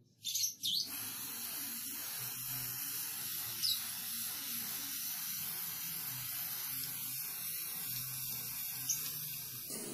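Aerosol spray-paint can spraying paint in a steady hiss, after a few short sputters as the nozzle is first pressed; the spray stops just before the end.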